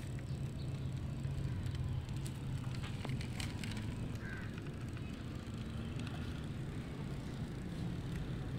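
Wheels of a 1:32 diecast Toyota Prado model rolling over rough concrete as it is pushed by hand: a steady low rumble with a few light clicks.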